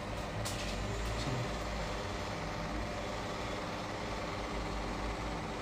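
Steady low background hum with faint steady tones, unchanging throughout.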